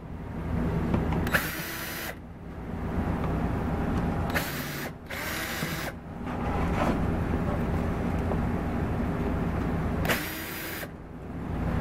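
Cordless drill-driver with a socket spinning out the screws of a go-kart's air filter housing, running in about four short bursts over a steady low rumble.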